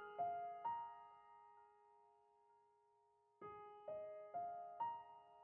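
Soft background piano music: a few single notes ringing out and fading, a pause of near silence, then four more notes in quick succession.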